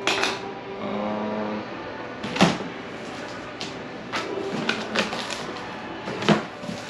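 Large taped cardboard shipping box being handled and its flaps pulled open: scraping cardboard with a few sharp knocks.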